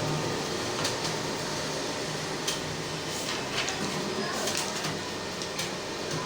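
Computer keyboard being typed on during a typing-speed test: irregular key clicks over a steady room hum.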